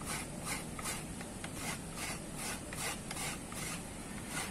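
Rhythmic rasping scrapes, about three strokes a second.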